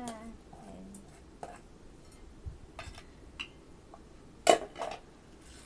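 Tableware clinking and knocking during a meal: a few scattered short clicks of dishes and utensils, the loudest about four and a half seconds in.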